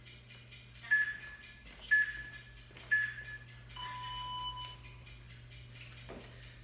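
Electronic interval-timer countdown: three short beeps a second apart, then one longer beep of about a second, signalling the start of a HIIT work interval. A steady low hum runs underneath.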